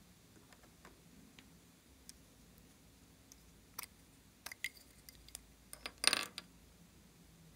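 Hard plastic lipstick tubes being handled and uncapped: a few scattered light clicks, then a short, louder clatter of clicks about six seconds in.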